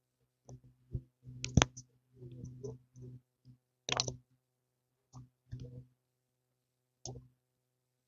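Irregular clicks and taps from small objects being handled close to the microphone, with a few sharper clicks about one and a half and four seconds in.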